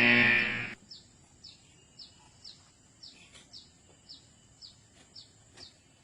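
A bird chirping in a steady series of short, high, falling notes, about two a second. It follows a loud pitched sound that cuts off under a second in.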